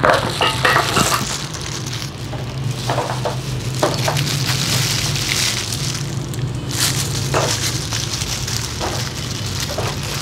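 Thin disposable plastic gloves crinkling and rustling as hands wind wet hair onto perm rods, in irregular crackles, over a steady low hum.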